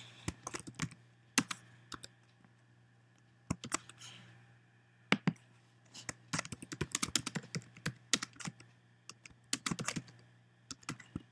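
Typing on a computer keyboard: quick, irregular runs of keystrokes with short pauses between them, over a faint steady low hum.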